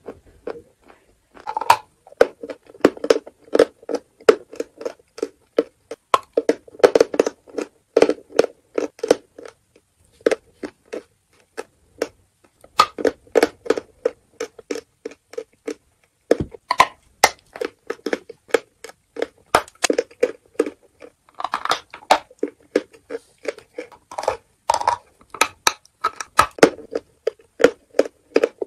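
Close-up chewing of natural chalk: rapid dry crunching and crumbling in the mouth, in dense runs with short breaks.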